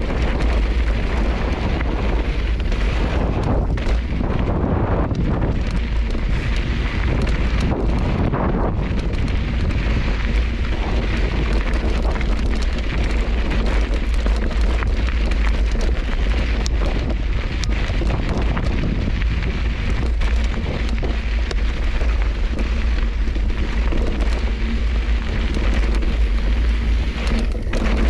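Wind buffeting the action camera's microphone over the crunch and rattle of a mountain bike's knobby tyres rolling across loose rocky desert trail.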